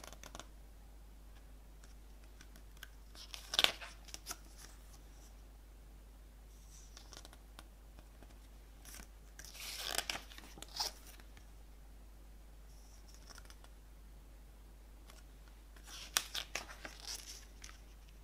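Glossy paper pages of a CD booklet being turned by hand: three short bouts of crisp rustling and crinkling, several seconds apart.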